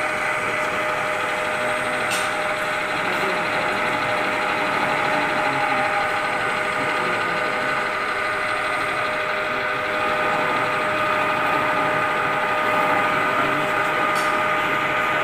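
Metalworking lathe running steadily: an even motor and gear whine that holds the same pitch throughout.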